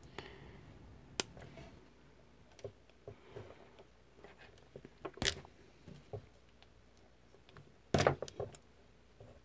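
Scattered small clicks and taps of hands handling thin wires and a pair of pliers on a carbon-fibre drone frame, with sharper clicks about five and eight seconds in.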